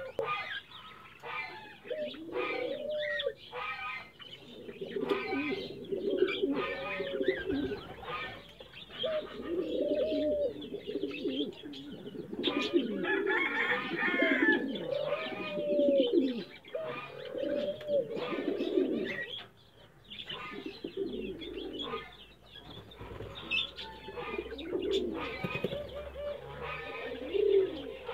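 Domestic pigeons cooing over and over in low rising-and-falling calls while they feed, mixed with quick pecking clicks as they pick up corn.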